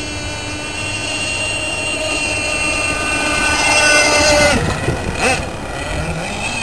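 Gas-powered RC boat's small engine running at speed with a steady high whine. It grows louder as the boat comes close, and its pitch drops briefly about four and a half seconds in.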